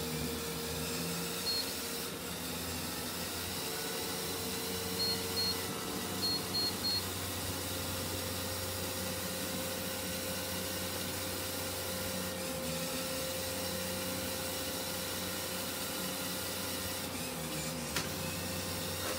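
Treadmill belt and motor running steadily while two Lego Technic Powered Up motor-driven vehicles, each loaded with a 415 g can, drive against it, giving a steady whine and gear drone. Short high electronic beeps come once, then twice, then three times in the first seven seconds, after which the whine steps slightly higher in pitch; a single click near the end.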